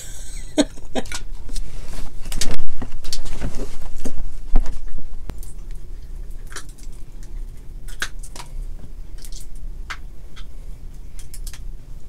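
Close-miked eating of a seafood boil by hand: crab shells crackling and snapping as the meat is picked out, with chewing. The cracking is densest in the first few seconds, then thins to scattered clicks.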